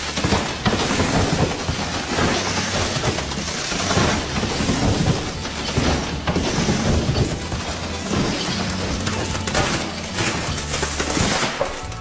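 A row of trees falling one after another in a chain reaction, with a continuous run of branches cracking and trunks crashing down. Background music plays underneath.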